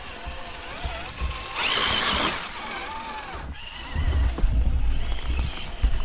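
Scale RC rock crawler trucks driving over rock in a shallow creek: a thin electric motor whine that falls in pitch, with a loud rushing burst about one and a half seconds in. In the second half come low rumbling knocks under a steady high whine.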